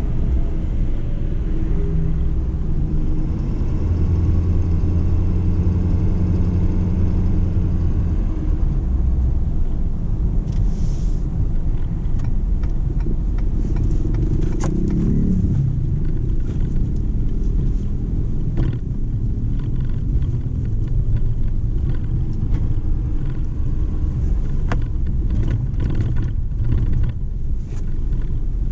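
2017 Ford F-250 pickup driving, its engine and tyres making a steady low rumble. For a few seconds a steady engine tone rises above it, and short ticks and knocks come and go in the second half.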